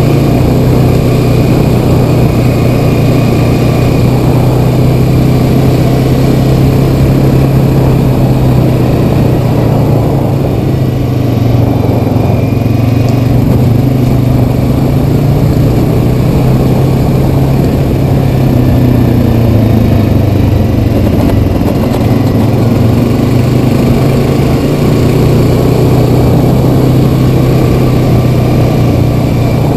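Honda Rancher 420 ATV's single-cylinder four-stroke engine running steadily under way at trail-riding speed. The engine note eases off briefly twice.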